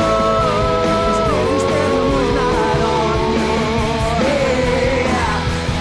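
Live pop-rock band song: a long held sung 'yeah' that steps down in pitch a few times, over drums, cymbals and guitar.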